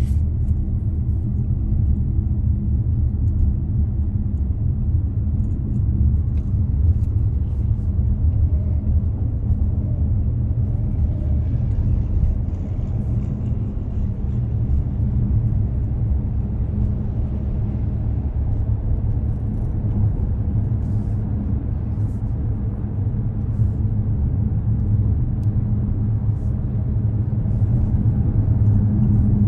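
Car driving along: a steady low rumble of tyre and engine noise.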